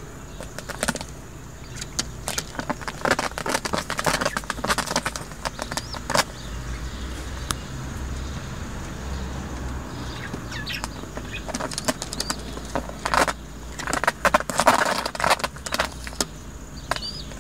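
Old Dutch Capuchine pigeons flapping and rustling their wings and scuffling on a wooden board as one mounts the other to mate. The sound comes in two bouts of quick, sharp clatters: one in the first few seconds and another about two-thirds of the way through.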